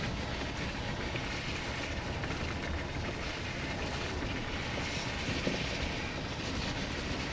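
Steady road and engine noise of a moving vehicle heard from inside its cabin, an even rumble with no change in pitch.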